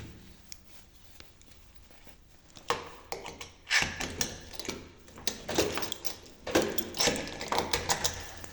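A key turning in a door lock, with keys jangling: a run of sharp metallic clicks and rattles starting about three seconds in, as the door is locked.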